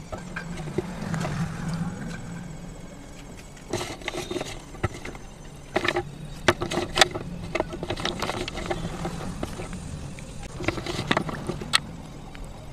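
Wet slate pieces clicking and clattering against one another as they are picked up and stacked in a steel basin of milky water, a dozen or so sharp clinks spread through, over a steady low hum.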